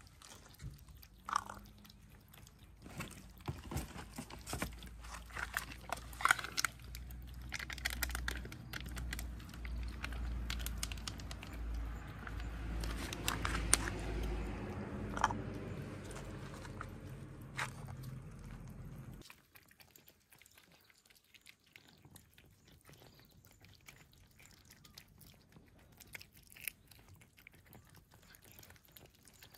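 Cats crunching and chewing dry food, with many quick crunches close by. A low rumble runs under the chewing for much of the time and cuts off suddenly about two-thirds of the way in.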